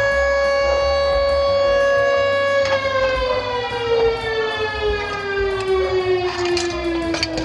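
A long, loud siren-like tone, held steady at one pitch, then sliding slowly and smoothly down in pitch from about a third of the way in. A few short clicks come near the end.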